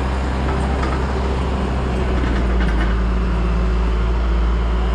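Engine of a fork-equipped machine running steadily at raised revs, a low drone, while it holds up a heavy load.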